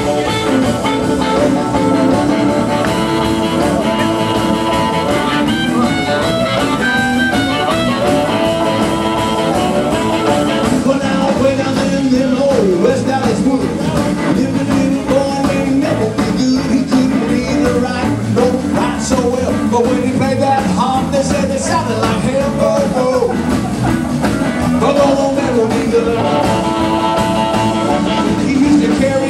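Live electric blues band playing: harmonica cupped to the vocal microphone over electric guitar, bass guitar and a drum kit. The held harmonica notes stand out near the start and again near the end.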